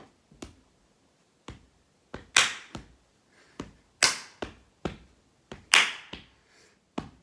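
Sharp percussive pops made with the body, three loud ones about a second and a half apart among quieter clicks, each ringing out briefly.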